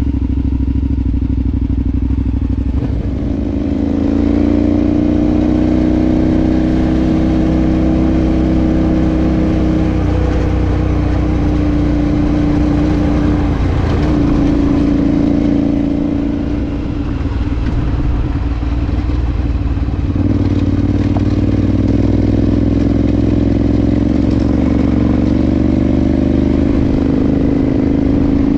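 Adventure motorcycle engine running while riding, its note rising and falling with the throttle and gear changes, easing off briefly about two-thirds of the way through.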